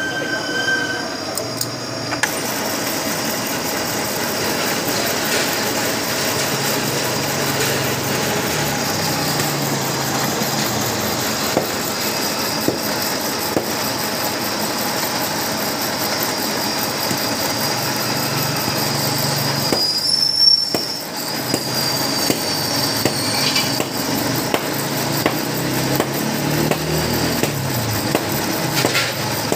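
A metal lathe runs steadily, turning a white engineering-plastic bushing in its chuck while a hand tool works the spinning part. A thin high squeal falls away about two-thirds through.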